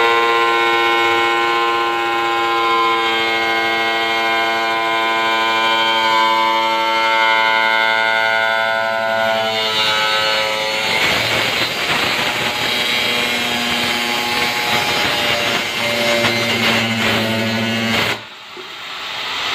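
Handheld angle grinder with a cutting disc cutting into the top of a plastic barrel. It runs with a steady whine, then turns rougher and noisier from about halfway. The sound drops out briefly near the end and starts again.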